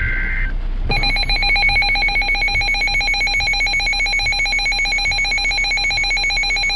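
The tail of an Emergency Alert System SAME header, a short raspy two-tone data screech. Then, about a second in, the loud EAS attention signal begins: a harsh, buzzy alarm tone held steady, warning that an emergency message follows.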